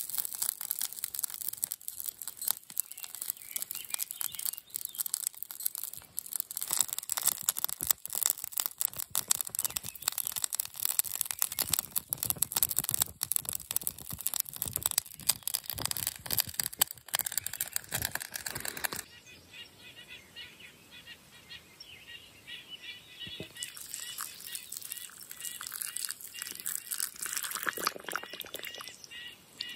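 Small wood fire crackling and snapping in a folding stainless-steel twig stove (Bushbox LF) under a pot. About nineteen seconds in it gives way to quieter bird chirps, and near the end hot water is poured into a mug.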